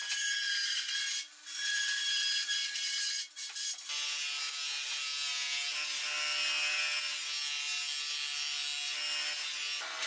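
Continuous rubbing and scraping of wood, with a steady hum underneath; it breaks off briefly about a second in and again about three seconds in.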